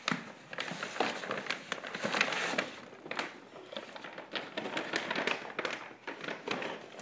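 Wrapping paper crinkling and rustling, a quick, uneven run of crackles as a present is unwrapped.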